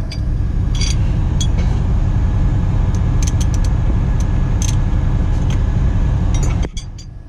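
Metal hand tools clinking as a wrench is fitted onto the extension in the belt tensioner pulley, a few separate clinks, over a loud steady low rumble that cuts off sharply near the end.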